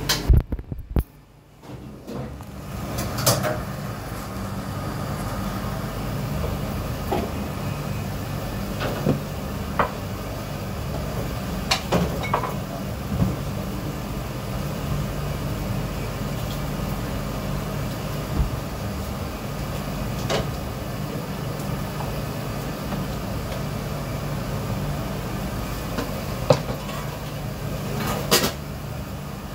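Restaurant kitchen at work: a steady low machine hum, with scattered knocks and clatters of dishes, utensils and cupboard doors being handled. The sound drops almost out for a moment about a second in.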